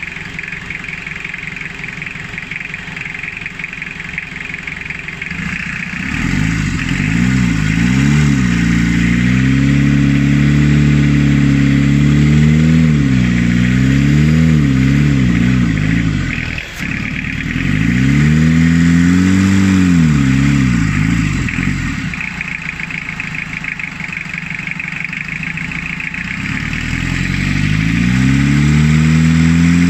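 Toyota 2C four-cylinder diesel engine running after its fuel system has been bled: it idles for about six seconds, then is revved up and down several times by hand at the injection pump lever. It settles back to idle for a few seconds and revs up again near the end.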